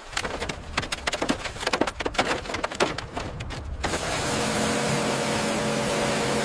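Rapid, irregular clatter of knocks and taps, then about four seconds in a steady mechanical hum with a low drone takes over.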